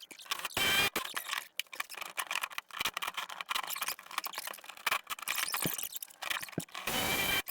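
Tools and metal parts clicking and clattering as they are handled, with two louder rushing, rattly sounds about half a second long, one about half a second in and one near the end.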